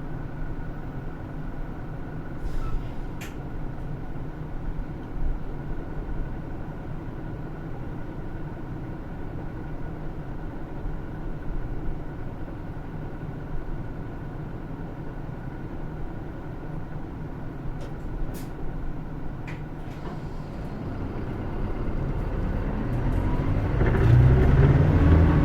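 Hino Rainbow II diesel route bus heard from inside, its engine running steadily at low load with a few light rattles and clicks. About three-quarters of the way through, the engine revs rise and grow louder as the bus pulls away and accelerates, loudest near the end.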